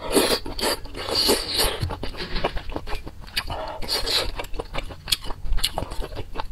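Close-miked eating of noodles in soup: a few rushing slurps early on, then wet chewing with many small mouth clicks.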